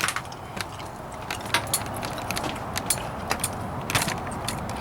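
Handling noise from a handheld camcorder being carried: irregular clicks, light rattles and rustling against the microphone.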